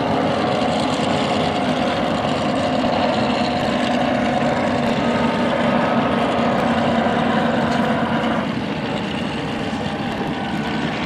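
Water-ski race boat engines running at low speed, a steady drone over the wash of the water. It drops a little quieter about eight seconds in.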